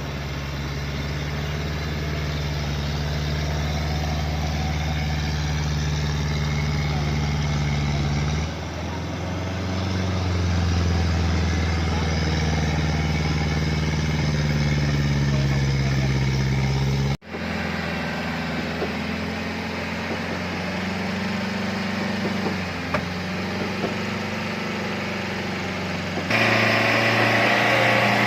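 Off-road 4x4's engine running steadily under load, its pitch shifting now and then, with an abrupt cut about two-thirds of the way through and a louder, harsher stretch near the end.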